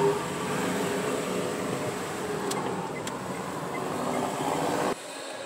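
Car driving slowly through city streets, engine and road noise heard from inside the cabin, with two faint clicks about halfway through. The sound cuts off abruptly near the end to a quieter background.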